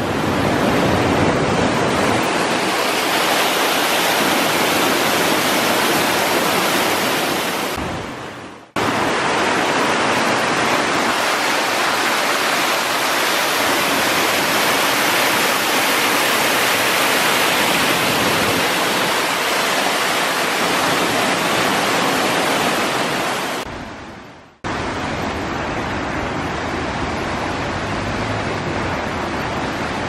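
A mountain stream running high with spring flow: a steady rush of water. It fades out and breaks off twice, about a third of the way in and again near the end, and returns slightly quieter after the second break.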